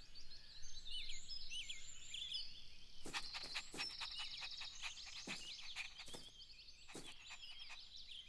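Faint outdoor ambience of birds chirping and trilling, with scattered short clicks from about three seconds in.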